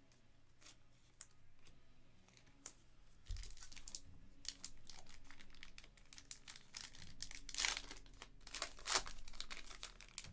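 Plastic trading-card pack wrapper being handled, torn open and crinkled as the cards are slid out. There are a few light ticks at first, then steady crinkling from about three seconds in, loudest near the end.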